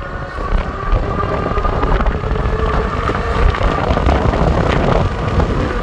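Vitilan T7 electric fat-tyre bike's 750 W motor at full assist in mode five, giving a steady whine, with wind rushing over the microphone as the bike accelerates toward its top speed of about 29 mph.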